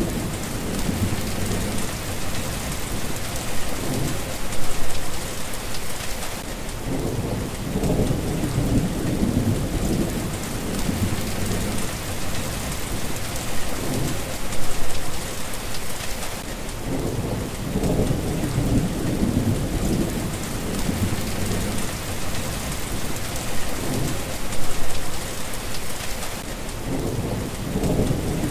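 Steady rain falling, with low rolls of thunder that swell and fade several times, about every ten seconds.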